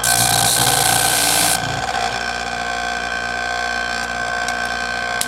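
Twice as Sharp sharpener's electric motor running steadily, with a rotary cutter blade pressed against its grinding wheel for a loud hissing grind that stops about a second and a half in.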